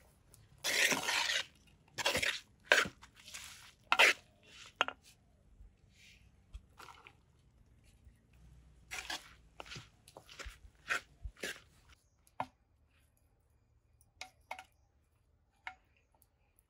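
Chopped raw jackfruit pieces tipped into a terracotta clay pot, then a spoon stirring and scraping them around the pot, heard as a string of short rustling scrapes. A few light clicks of the spoon against the pot come near the end.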